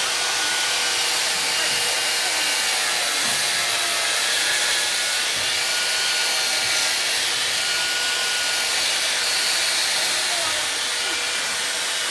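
Handheld electric power tool running steadily as it cuts and grinds into a block of ice, a continuous motor whine.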